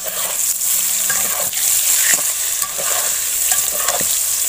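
Whole bitter gourds sizzling in hot oil in a kadai while a steel spatula turns them, with a few short scrapes of the spatula against the pan.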